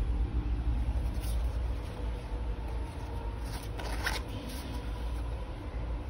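Waterproof zipper of a small nylon EDC coin pouch being pulled open by hand, with short rasps and fabric rustle, clearest about three and a half to four seconds in, over a steady low rumble.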